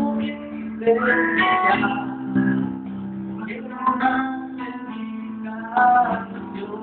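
Live Christian song: a man singing into a microphone over a guitar-led accompaniment, with voice phrases coming and going over steady sustained notes.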